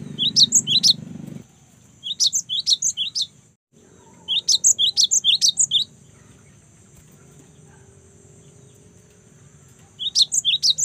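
Young cinereous tit (gelatik batu) singing in four bursts of rapid, high-pitched repeated chirping notes, each burst a second or so long, with a long pause before the last. A faint steady high hiss runs underneath.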